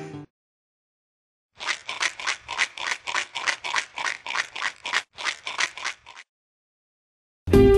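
Sound effect of a cocktail shaker being shaken, ice rattling about four times a second for some four seconds before it stops. Guitar music comes back in at the very end.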